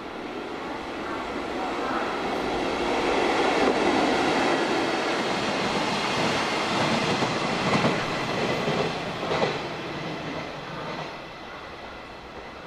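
A freight train made up of an EF65 electric locomotive and a new Yokohama Municipal Subway 10000-series car passes through the station without stopping. The rumble of wheels on rail builds over the first few seconds and stays loud through the middle, with a few sharp clacks over rail joints. It then fades as the train moves away.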